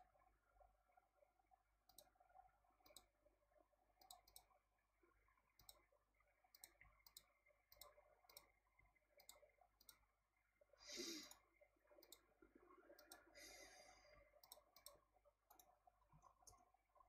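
Faint computer mouse clicks, about twenty of them at irregular intervals, made while a circuit schematic is edited. A soft breath is heard about eleven seconds in, and another quiet breathy noise comes around thirteen to fourteen seconds.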